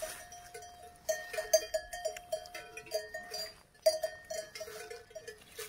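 Bells on grazing cattle clanking irregularly, ringing the same couple of notes over and over, with a few sharp crunches of grass being torn by a calf as it grazes.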